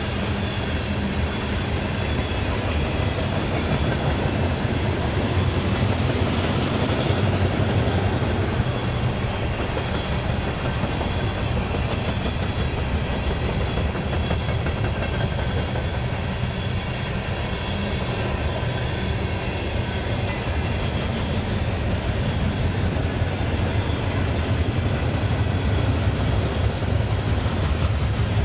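Freight train rolling past, with a steady low rumble of wheels on the rails that holds for the whole stretch.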